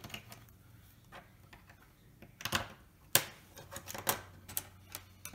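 Plastic LEGO Technic pins and beams being pushed together and handled on a wooden table: about five sharp clicks and taps in the second half, the loudest about three seconds in.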